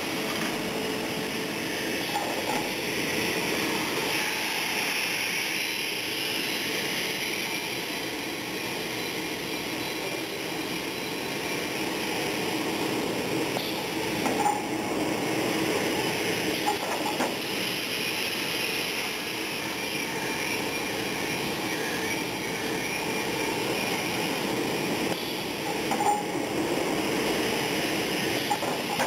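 Large industrial woodworking machine running with a steady mechanical noise, its beam travelling over the wooden boards on the table, with a few brief clinks and knocks around the middle and near the end.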